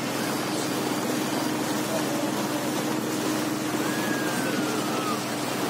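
Small motorboat's engine running at a steady drone, with the rush of water and air as the boat moves across the lake.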